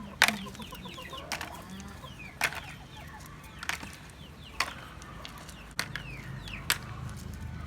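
Chickens clucking, with sharp knocks about once a second.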